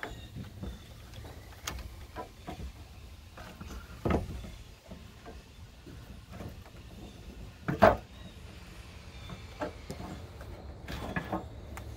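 A new radiator being lowered and seated in a 2002 Jeep Grand Cherokee's radiator support, giving scattered knocks and clunks as it meets the frame and rubber grommets. The loudest knock comes about eight seconds in, with another about four seconds in.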